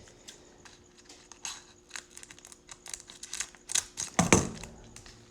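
Trading cards and their plastic pack wrappers being handled: a run of light crinkling rustles and small clicks, with a louder rustle and knock about four seconds in.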